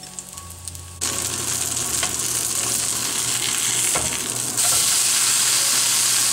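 Oats dosa frying in oil on a hot pan: a steady sizzle that sets in suddenly about a second in and grows louder a few seconds later, with a couple of faint clicks.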